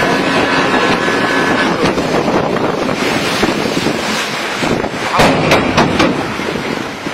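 Outboard motor driving a small boat at speed, with wind buffeting the microphone and water rushing past the hull. A few sharp knocks come about five seconds in.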